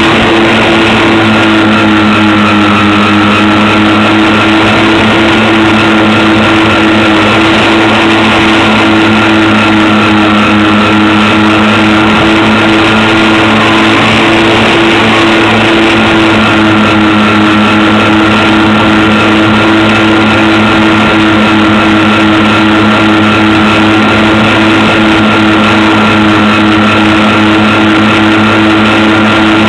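Electric motors and propellers of a home-made twin-engine RC plane running at a steady throttle: a loud, even whine with a few held pitches over a rushing hiss.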